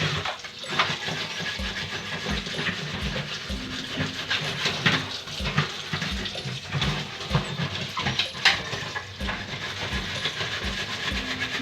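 Scouring a gas stove by hand: a run of rough, irregular rasping scrub strokes with dull knocks recurring under them.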